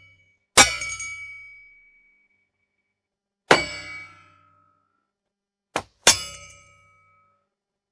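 Metal impact sound effects: three hard metal clangs, each ringing on and dying away over about a second. A short, sharp metallic hit comes just before the last clang.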